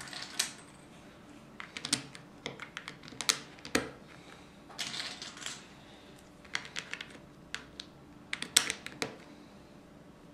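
Plastic Lego tiles clicking and tapping as they are handled and pressed onto a Lego baseplate: irregular, sharp clicks, some in quick clusters.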